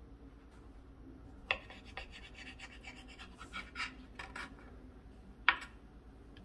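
Kitchen knife sawing through a fruit-topped bread sandwich on a cutting board, a run of scratchy strokes through the middle. Two sharp knocks come about a second and a half in and again near the end.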